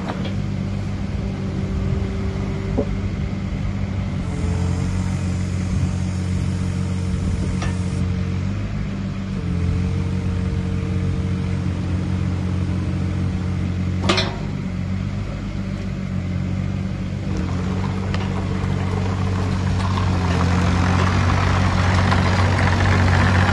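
2015 Wacker Neuson EZ28 mini excavator's diesel engine running steadily under hydraulic work, with a thin whine that comes and goes in the first half and a single sharp clank about halfway through. The machine gets louder near the end as it tracks up close.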